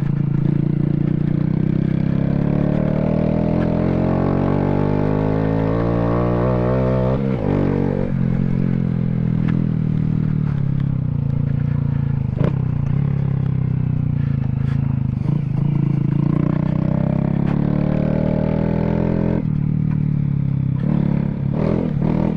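Honda Grom's 125 cc single-cylinder engine running under throttle while riding: the revs climb for about five seconds, drop abruptly about seven seconds in, then hold and rise again before dipping near the end. A few sharp knocks come through.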